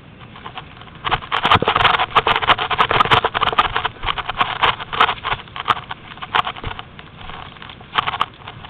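Crunching and rustling of dry brush and leaves with footsteps and camera handling noise. It sets in about a second in, with many irregular sharp snaps and clicks through the rustle.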